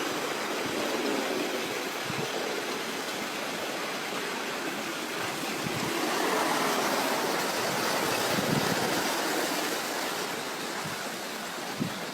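Steady rushing noise, like moving water or wind, with a few soft low thumps.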